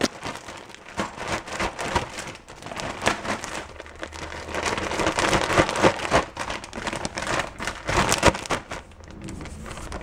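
A Ziploc bag of chocolate-coated cereal and powdered sugar being shaken: plastic rustling and cereal pieces rattling and swishing inside, in a steady, uneven stream of quick clicks.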